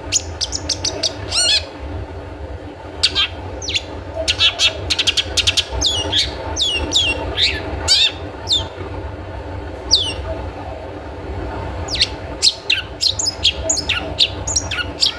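Long-tailed shrike (cendet) calling in rapid runs of sharp notes that slide down in pitch, the 'toet toet' call used as a lure to set other cendet singing. The calls break off for a couple of seconds around ten seconds in, then resume. A steady low hum runs underneath.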